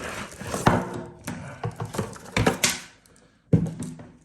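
Packaging being handled as a power strip is unwrapped: plastic wrapping rustles, with several sharp knocks and scrapes against the box, pausing briefly near the end.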